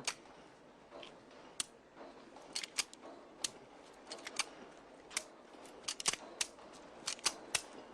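Hand-worked metal machinery in a workshop clicking and clacking: about twenty short, sharp metallic clicks at uneven intervals over a faint steady background.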